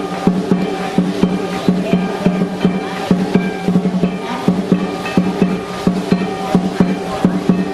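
Lion dance percussion: a drum beating a fast, steady rhythm with crashing cymbals and a ringing gong.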